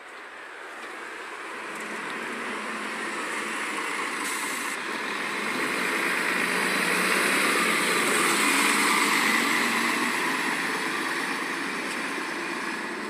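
City bus passing close by and driving away: engine and tyre noise swelling to a peak about eight seconds in, then fading.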